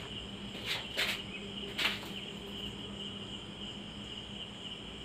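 Crickets trilling steadily, a continuous high tone, over a faint low steady hum. Three brief soft noises come in the first two seconds.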